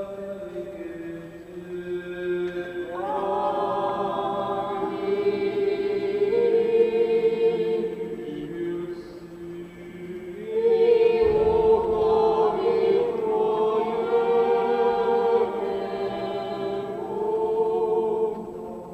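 Congregation singing an unaccompanied Byzantine-rite liturgical chant in long held notes, louder through the middle and dropping away near the end.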